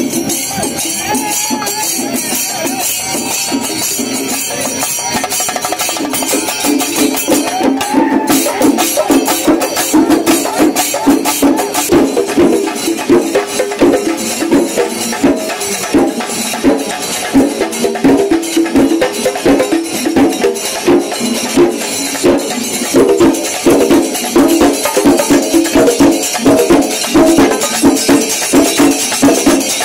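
Ensemble of Kerala chenda drums beaten with sticks in a fast, dense rhythm, with a metallic jingle over the strokes. It grows louder and more accented about ten seconds in.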